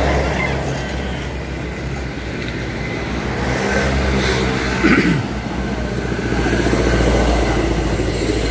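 A motor vehicle engine running steadily nearby as a low rumble, with a brief louder sound about five seconds in.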